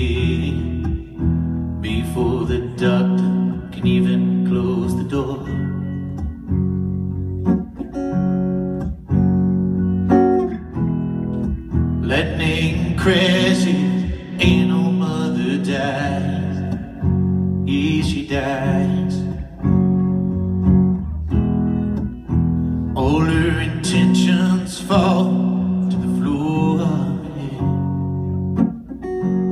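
A man singing solo to his own acoustic guitar, played live. The guitar keeps going under sung phrases that come and go, with the strongest singing about twelve and twenty-three seconds in.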